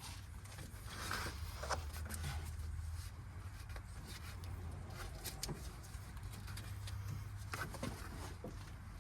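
Faint, scattered light clicks, taps and rustles of hands working a serpentine belt onto the engine pulleys, over a low steady rumble.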